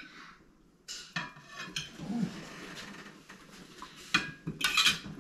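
Plates and cutlery clinking on a dining table as food is served onto plates: scattered light clinks, with a couple of louder clatters near the end.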